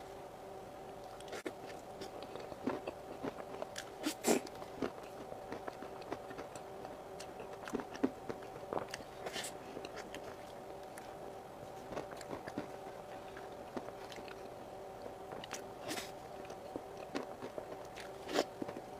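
Close-miked eating of whipped cream cake: irregular wet mouth smacks and clicks as it is chewed, over a faint steady hum.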